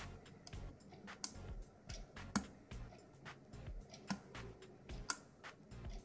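Hook pick and tension wrench working the pin tumblers of an ERA six-pin euro cylinder under pin-side tension: small irregular metallic clicks and ticks as the pins are lifted, the loudest click about five seconds in, with soft handling bumps.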